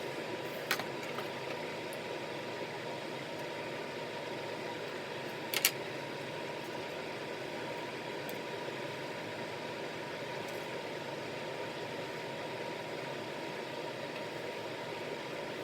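Steady whirring air noise from a small fan motor, with a faint steady hum, broken by a couple of short clicks, about a second in and again around five and a half seconds.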